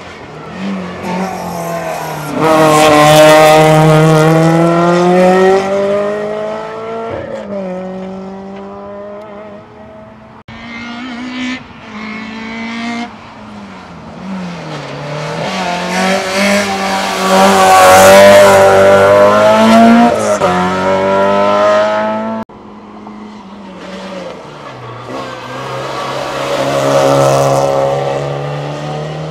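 Hillclimb race car engines at high revs, pitch climbing and dropping with gear changes and lifts off the throttle. The sound swells and fades as the cars go by, loudest at about three seconds and again near eighteen seconds.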